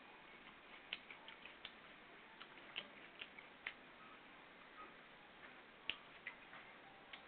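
Faint, irregular wet clicks and smacks of a mouth chewing a tomato close to the microphone, the sharpest about six seconds in.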